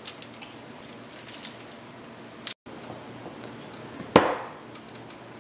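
A marker scratching across parchment paper in a quick series of short strokes. After a break comes a single loud, sharp knock a little over four seconds in.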